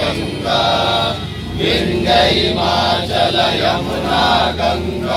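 Group of men singing in unison, led by a young man's voice through a handheld microphone.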